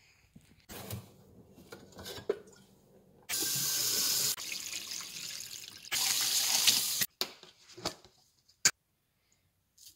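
Kitchen faucet running into a glass coffee carafe, filling it. The flow is turned off suddenly about seven seconds in, and a few short knocks follow.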